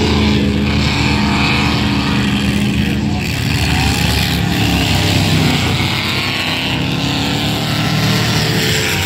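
Race truck engines running during an enduro race, a steady loud engine drone whose pitch drifts slightly.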